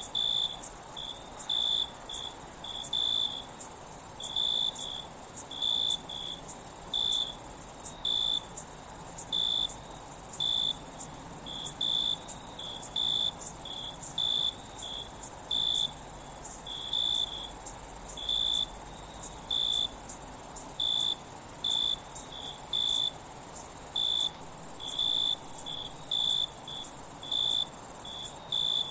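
Night insect chorus: a steady high-pitched trill, with crickets chirping in short pulses about once or twice a second. The sound drops out briefly a few times.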